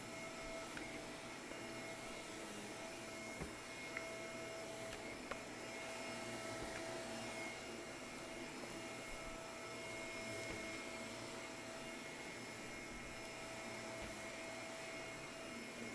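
Shark vacuum cleaner running steadily, a motor whir with a high whine over hiss, with a few light clicks in the first few seconds.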